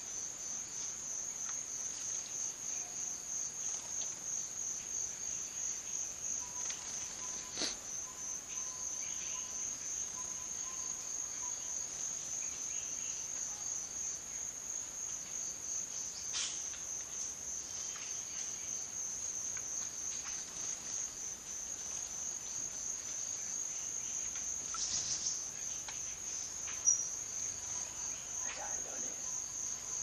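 Insect trilling steadily at a high pitch in a fast, even pulsing rhythm. There are a few faint clicks, and one short, sharp high chirp comes near the end.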